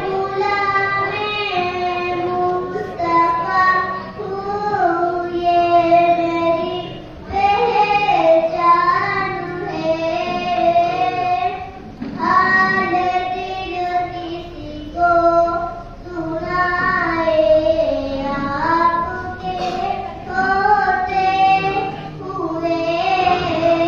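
A young boy singing a naat (devotional poem in praise of the Prophet) solo into a microphone, in long held, wavering phrases with short breaks for breath.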